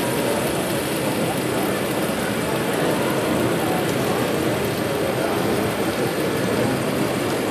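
HO-scale narrow-gauge diesel locomotive model running across the layout, an engine-like running noise mixed with a steady murmur of voices.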